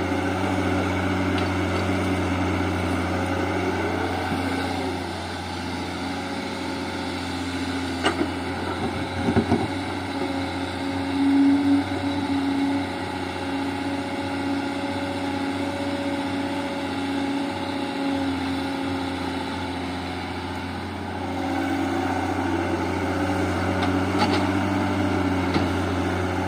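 Tata Hitachi excavator's diesel engine running steadily through a dig-and-load cycle into a tipper truck. A few short knocks from the bucket working the dirt come between about 8 and 12 seconds in.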